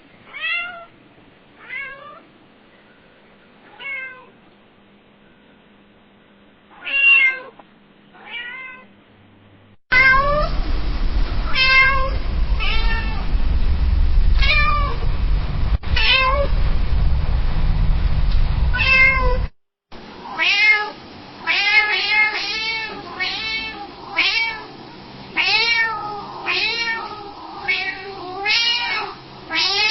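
Domestic cat meowing in three separate recordings. First come about six meows spaced a second or two apart. Next are meows over a loud low rumble, then a quick run of meows close together.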